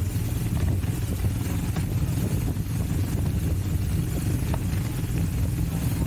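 Royal Enfield Himalayan's single-cylinder engine running steadily as the sidecar outfit is ridden, a continuous low rumble with a faint rush of wind and road noise.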